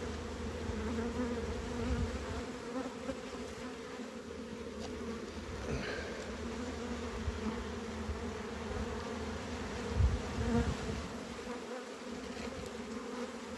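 Honeybees buzzing steadily around an open hive, a constant droning hum of many bees. A brief low bump about ten seconds in.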